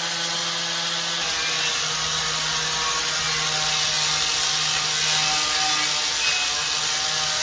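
Paint spray gun spraying, a steady hiss of air and paint over a steady motor hum.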